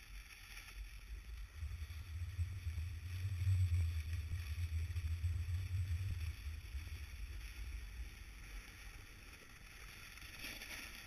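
Low, uneven rumble of wind buffeting an action camera's microphone as it moves down a snowy ski slope. It builds from about a second and a half in, peaks a couple of seconds later and eases off after about six seconds.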